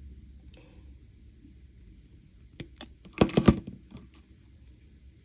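Wire cutters snipping the end of a silver-plated copper wire on a wire-wrapped pendant: a quick cluster of sharp clicks a little over three seconds in, with a few fainter clicks before and after.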